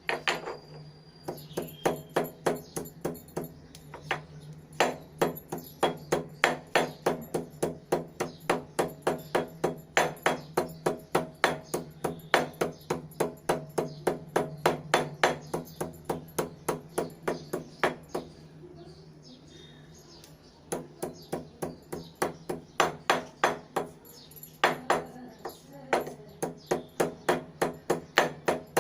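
Stone hand-muller knocking on a flat shil grinding stone as tulsi leaves are crushed, in a steady run of sharp stone-on-stone knocks about two to three a second. It breaks off for a couple of seconds about two-thirds of the way through.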